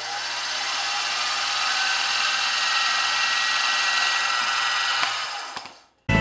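Milling machine spindle running with a steady whirring hiss over a low hum, as a spot drill is fed into the top of a brass cylinder blank and withdrawn. The sound dies away over the last second, and music starts right at the end.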